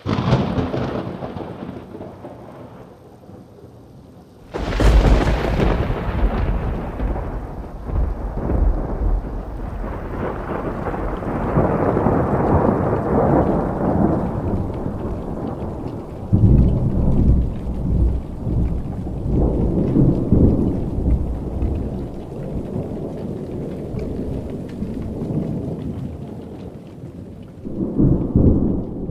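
Thunder from a close lightning strike: a sudden sharp crack about four and a half seconds in, followed by a long, low rolling rumble that swells and fades several times.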